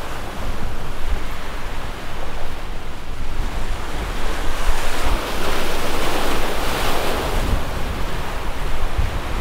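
Waves washing against the rocks of a jetty, with wind buffeting the microphone. The wash swells about five seconds in and eases off after about seven.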